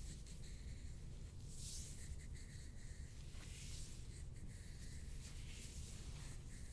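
Hands rubbing and working over skin and clothing during a soft-tissue massage, a few soft swishing strokes over a steady low room hum.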